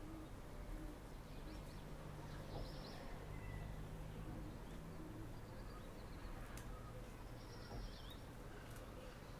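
Faint outdoor ambience: small songbirds chirping at intervals over a steady low rumble of distant traffic or machinery, with a low hum running for a few seconds near the start.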